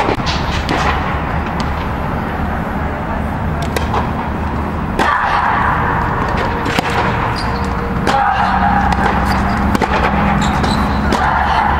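Tennis ball being struck by rackets and bouncing on a hard indoor court during a rally: single sharp pops one to three seconds apart over a steady low hum.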